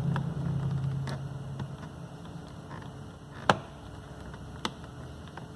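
Sharp plastic clicks and ticks as a tight dashboard trim panel is pried off its clips with a plastic trim tool, the loudest snap about three and a half seconds in. A low steady hum fades out in the first two seconds.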